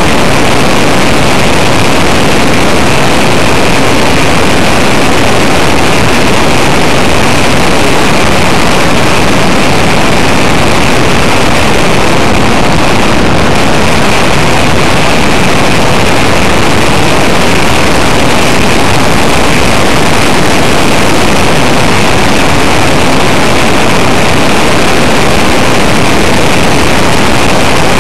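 Cessna 185's engine and propeller running steadily in flight, mixed with wind rush, picked up by an onboard camera's microphone. It sounds loud and overdriven, with a constant high tone over the noise.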